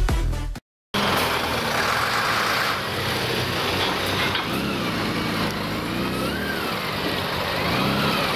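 Steady noise of a wet city street. From about four seconds in, an emergency siren wails, rising and falling slowly about every second and a half.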